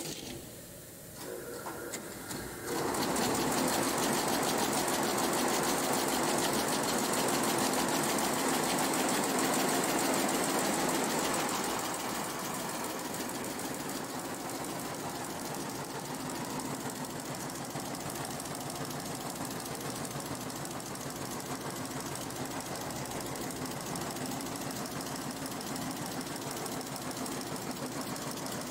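Multi-head Shengming sequin embroidery machine running, its needles stitching in a fast, even clatter. It gets louder about three seconds in and drops back somewhat after about twelve seconds.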